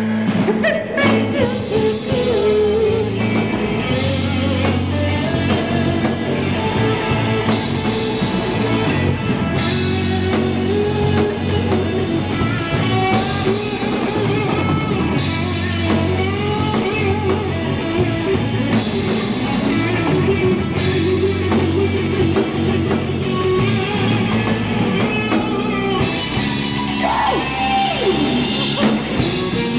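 Live rock band playing through PA speakers: electric guitars and a drum kit, with women singing into microphones.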